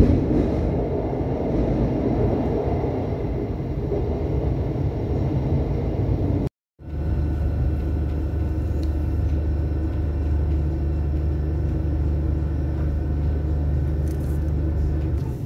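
Cabin noise inside a Class 700 electric train: a rumble of the train running through a tunnel. After a brief cut, a steady low hum continues as the train runs along the station platform.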